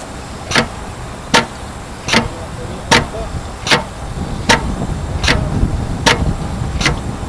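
Air-driven pump recirculating material at low air pressure, clicking once at each stroke, about one click every 0.8 seconds: dialled down to a slow, steady stir. A steady background noise grows somewhat louder about halfway through.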